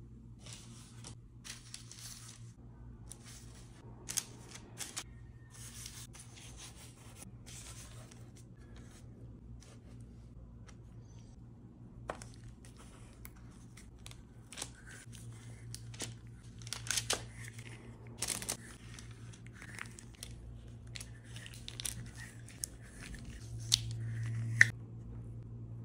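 Irregular crinkling and rustling of plastic gloves and baking paper as dough is pressed with a plastic spring-loaded plunger cookie mould, with scattered clicks and taps from the mould and tray; the sharpest click comes near the end. A low steady hum runs underneath.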